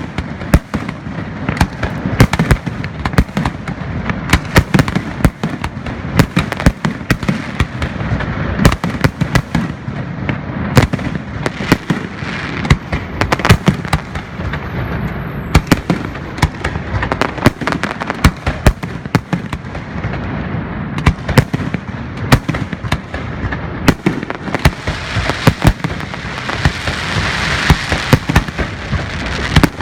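Fireworks going off in a continuous barrage: sharp bangs several times a second over a steady crackle. The crackle thickens into a hissing wash near the end.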